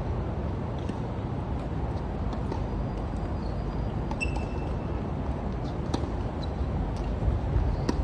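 Tennis balls struck by rackets and bouncing on a hard court, a few sharp pops spread a second or so apart, over a steady low background rumble.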